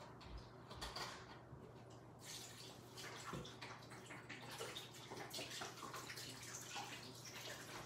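Vegetable broth pouring from a carton into a crock pot: a faint, steady liquid splashing that starts about two seconds in.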